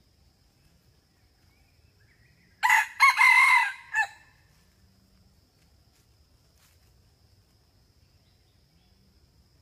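Red junglefowl rooster crowing once, about two and a half seconds in: a short, clipped crow of about a second and a half in several parts, ending with a brief final note.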